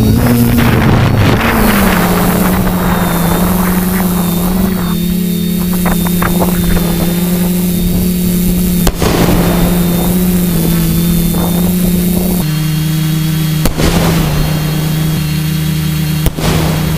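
Multirotor drone's electric motors and propellers humming steadily as heard from its onboard camera, with a faint high whine above the hum. The pitch falls and settles about two seconds in, steps down near the twelve-second mark, and a few brief thumps break in.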